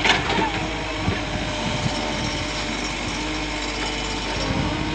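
A machine or motor running steadily, with a sharp knock at the start.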